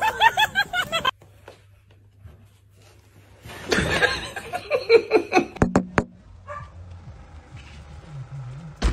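Quick high-pitched laughter that cuts off abruptly about a second in. After a quiet stretch come more voice sounds with two sharp clicks, then a short knock near the end.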